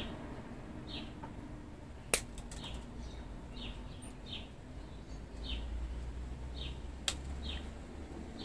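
A bird repeating a short, high, falling chirp about once a second. Over it come two sharp clicks, the louder one about two seconds in and another near seven seconds, from wire cutters snipping the training wire off an olive bonsai.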